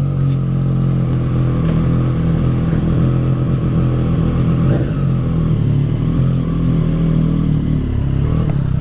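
Triumph Street Triple RS's 765 cc inline three-cylinder engine idling steadily through an aftermarket SC-Project SC-1 exhaust.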